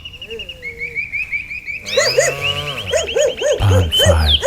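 Layered animal sound effects: a rapid series of short high chirps, about five a second, joined about two seconds in by repeated pitched calls about three a second, with a few low thumps near the end.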